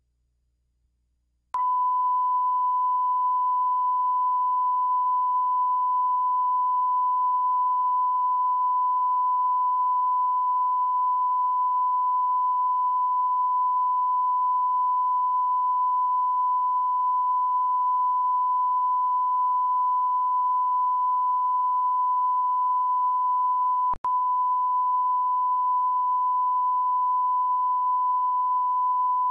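A steady, pure reference test tone: the line-up tone placed at the head of a film. It cuts in suddenly about a second and a half in, after near silence, and drops out for an instant a few seconds before the end.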